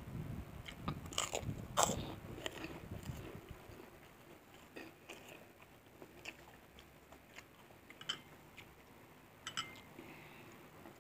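Close-up eating sounds: crunchy bites of kerupuk jangek (puffed cow-skin crackers) and chewing, densest in the first three seconds or so, then quieter chewing with a few sharp clicks.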